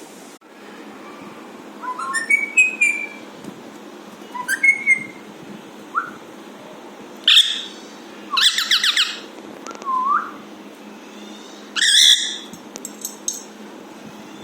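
Alexandrine parakeet whistling and calling in a string of short separate notes, about seven or eight in all: some are clear whistles that glide up in pitch, others are louder, fuller-toned calls, the loudest about halfway through and again near the end.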